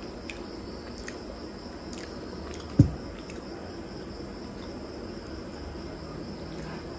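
Faint sticky clicks of fingers handling pieces of wet chicken liver and gizzard curry, with one dull thump about three seconds in, over a steady high hiss.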